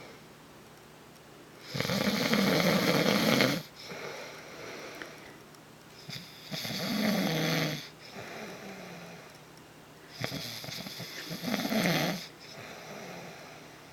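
A man snoring in his sleep: three loud snores about four seconds apart, each lasting a second or two, with quieter breaths between them.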